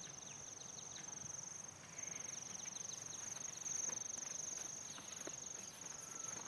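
Insects trilling steadily at a high pitch, with brief gaps, alongside a few short, quick bird chirps.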